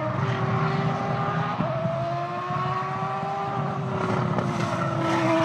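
Racing car engine sound: a steady, pitched engine drone that rises slightly and then sinks back, over a low rumble.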